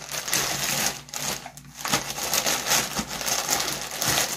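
Shipping packaging being torn open and handled: crinkling, crackling and rustling with small clicks, pausing briefly about a second in.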